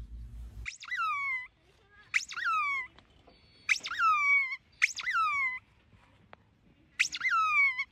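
A squeaky ball toy squeaking five times as a dog bites down on it. Each squeak is a sharp high note sliding down in pitch, roughly a second or so apart.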